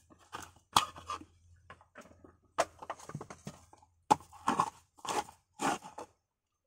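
Coconut meat being pried and scraped out of the shell with a hand tool: irregular crunching and scraping strokes, with a few sharper cracks. A faint low hum stops about four seconds in.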